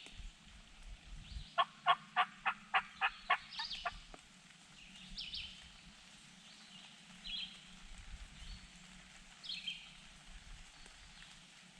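Wild turkey yelping: a run of about eight evenly spaced yelps, about four a second, near the start, with songbirds chirping now and then.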